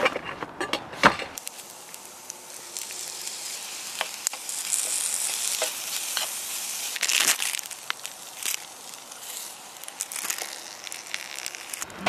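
Rice sizzling and frying in a pan over an open flame, with sesame oil and cheese just added, stirred and scraped with a metal spoon. A few sharp clicks and rustles in the first second or so.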